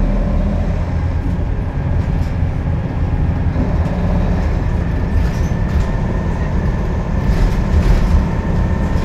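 Scania K280UB city bus with a ZF Ecolife automatic gearbox, heard under way from inside the passenger cabin: a steady low drone of engine and drivetrain, with a faint steady whine above it. The uploader calls this bus unhealthy-sounding.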